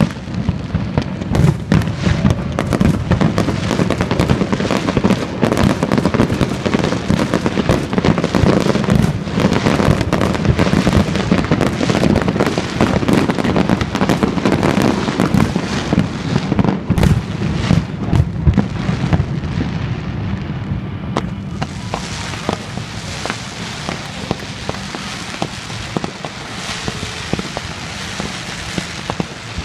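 Fireworks show going off: a dense, rapid run of bangs and crackling that thins after about twenty seconds into lighter, scattered crackles.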